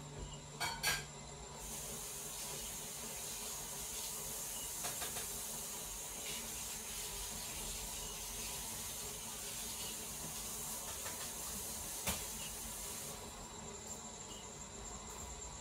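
A couple of sharp clicks just under a second in, then a steady high hiss that starts suddenly and cuts off near the end, with one more click partway through.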